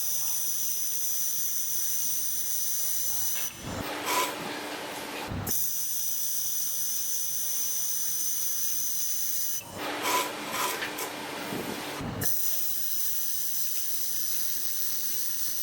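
Handheld laser welding machine running with a steady hiss and a high whine. Twice, for about two seconds each, the hiss and whine give way to a rougher crackling sound.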